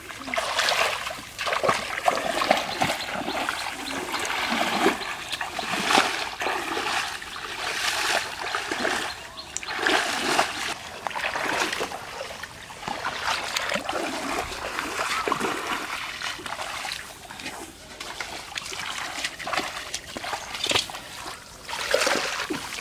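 Hands splashing and sloshing through shallow muddy water, groping for fish, in irregular splashes.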